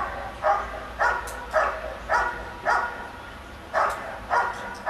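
A protection-trained working dog barking steadily at a helper in the hide, about two barks a second with a short pause about three seconds in: the hold-and-bark, in which the dog guards the helper at the blind by barking without biting.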